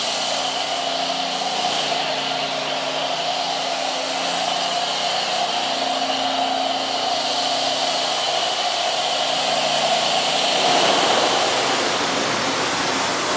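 High-pressure washer wand spraying water onto a truck's body in a steady hiss. The spray changes slightly about ten and a half seconds in.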